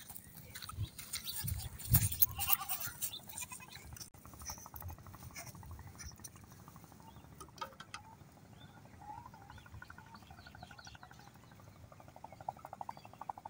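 Goats bleating in several wavering calls. In the first few seconds, footsteps crackle and thump on dry twigs and leaves.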